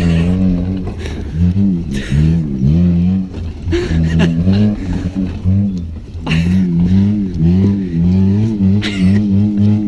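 Nissan Micra's small petrol engine revving hard, its pitch climbing and falling again and again as the throttle is worked on and off while the car is swung left and right.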